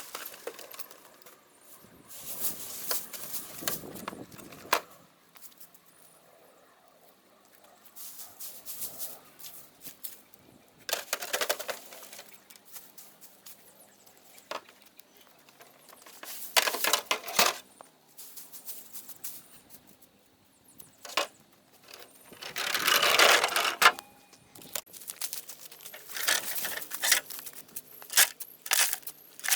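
Repeated bursts of rustling and crunching in dry leaf and wood-chip mulch, each lasting a second or a few seconds, with short quiet gaps between them.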